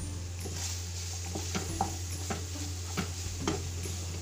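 Wooden spatula stirring chicken and diced capsicum in a frying pan, scraping and knocking against the pan at irregular moments over a light sizzle of frying.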